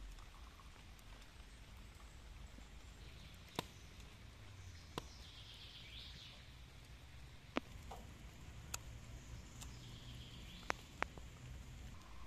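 Tea poured from a kettle into copper cups, a soft hiss heard twice, with a few scattered sharp ticks over quiet outdoor ambience.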